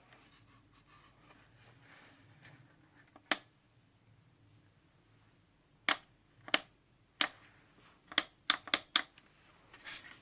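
About eight sharp plastic clicks from handling a Brücke 36 V battery chainsaw: one about three seconds in, then a run of clicks between six and nine seconds in, with faint handling rustle. The motor stays silent; the saw will not start because its battery is not seated properly.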